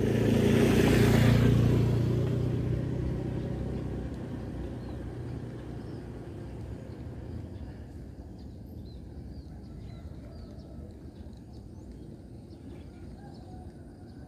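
A motor vehicle passing close and fading away: its steady engine hum is loudest in the first two seconds and dies down over the next several seconds.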